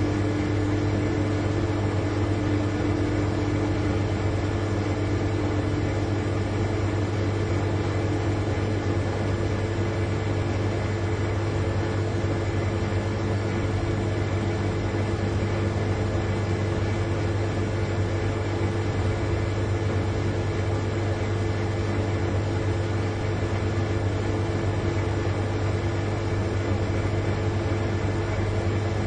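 Large refrigerator's compressor running with a steady, unchanging hum.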